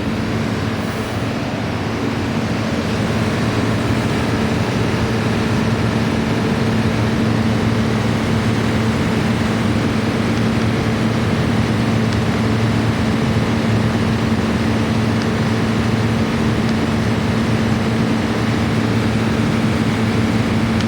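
Friedrich air conditioner running: a steady electrical hum under the even rush of its fan. It swells over the first couple of seconds, then holds level.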